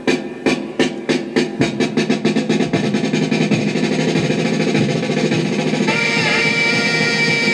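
A 45 rpm record playing through a 1956 RCA 7-HF-45 Orthophonic record player. Drum beats speed up into a drum roll, and a held, wavering note comes in near the end.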